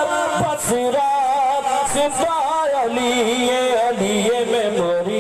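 A man singing a naat solo, a devotional poem in praise of the Prophet, in long held melodic lines with wavering ornaments.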